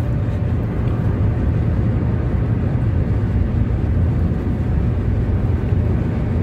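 Steady road and engine noise heard inside the cabin of a car driving at highway speed: an even low rumble with fainter tyre hiss above it.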